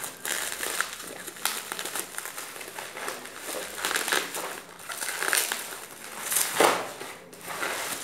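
Plastic bubble-wrap packaging crinkling and rustling as it is handled and pulled off a product, with a louder crackle near the end.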